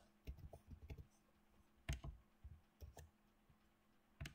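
Faint computer keyboard keystrokes and mouse clicks: a quick cluster of taps about half a second in, then single clicks spaced out, and a close pair near the end.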